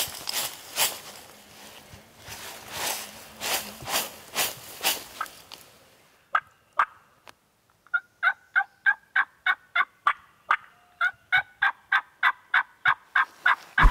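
A turkey diaphragm mouth call, a Woodhaven Ninja Hammer, sounding a quick run of clear yelps at about four notes a second through the second half. Before it come several seconds of scratchy, raspy strokes.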